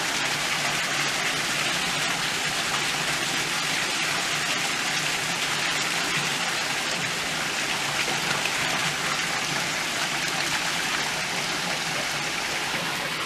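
Shallow rocky stream running over stones: a steady, unbroken rush of water.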